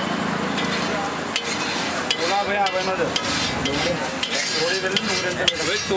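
Food sizzling on a hot griddle, then from about two seconds in, a run of quick sharp clinks and taps of a metal spatula against the griddle and pan.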